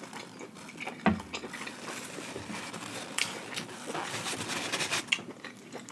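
Eating sounds: chewing king crab leg meat, with scattered small wet clicks and smacks.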